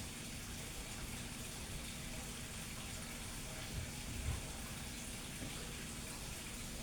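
Room tone: a steady hiss with a faint low hum, and two soft low thumps a little past the middle.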